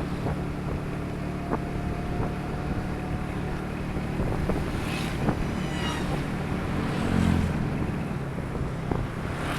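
Steady engine drone and road noise of a vehicle travelling along, with wind buffeting the microphone and scattered small clicks and rattles. The drone briefly grows louder about seven seconds in.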